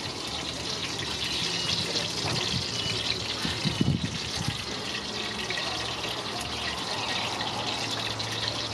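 Open wood fire blazing under a cooking pot: a steady rush with fine crackling. A few low thumps about four seconds in.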